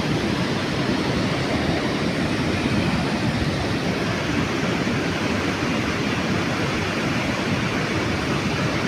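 Mandakini mountain river's water rushing over its bed: a steady, unbroken rush with no change throughout.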